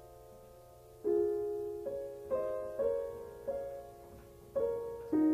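Soft piano background music: a held chord fades out, then from about a second in, single notes are struck about twice a second, each ringing away.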